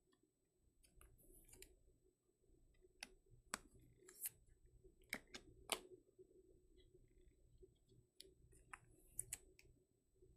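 Faint, irregular clicks and taps of trading cards in hard plastic top loaders being handled and set down on a table, over a faint steady room hum.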